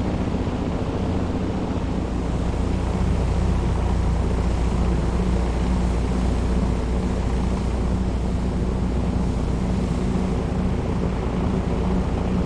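Steady drone of an airliner's jet engines in flight: a deep rumble with a constant hum and an even rushing noise over it.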